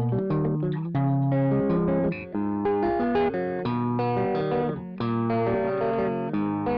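Electric guitar played through a Caline British Sound pedal set with every knob at noon: a continuous melodic run of picked notes and chords, with short breaks about two and five seconds in.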